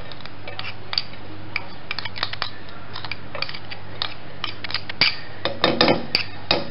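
Chopped herbs and garlic scraped off a plate into a metal pot: a run of light clicks and scrapes of a utensil on the plate, getting busier and louder about five seconds in, with a few short ringing knocks against the pot near the end.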